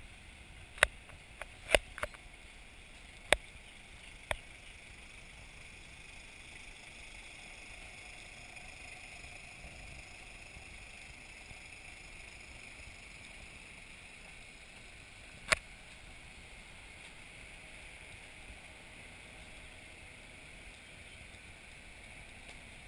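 Faint steady background hiss with a few sharp clicks: a handful in the first four seconds or so and one more about fifteen seconds in.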